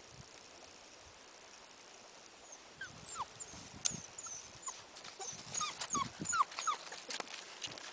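Puppies giving many short, high, falling yelps and whimpers, starting about three seconds in and getting busier near the end, mixed with sharp clicks of paws scrabbling on ice.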